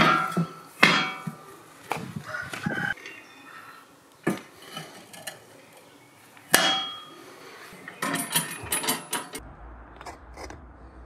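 Metal cooking gear clanking and clinking: a few sharp ringing strikes, with lighter knocks and scrapes between them and a quick run of clinks about eight seconds in.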